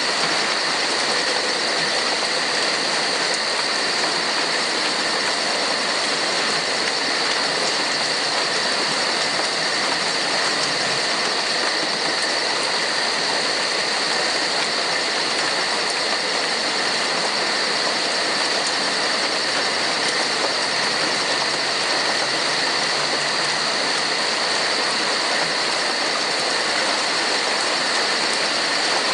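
Steady heavy rainfall, an even hiss of drops, with a constant high-pitched ringing layered over it.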